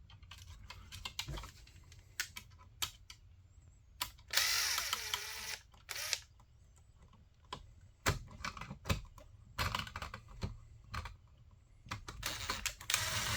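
Scattered small clicks and taps of hands working electrical wires and a smart outlet into a wall box. There is a rush of hiss about four seconds in lasting over a second, and another near the end.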